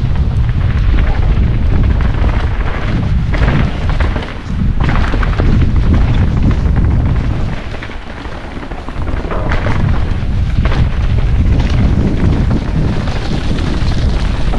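Heavy wind buffeting the microphone as a mountain bike rides a trail at speed, a loud continuous rumble. Frequent knocks and rattles come through it, from the bike going over rough ground.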